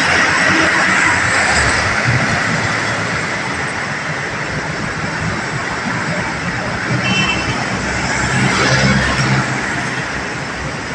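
Steady road traffic noise under an elevated concrete roadway: cars, vans and a jeepney passing, with one vehicle passing louder about eight to nine seconds in.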